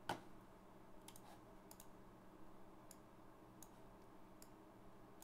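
A few faint, separate computer mouse clicks spread over several seconds, the first one the loudest, over a low steady hum of room tone.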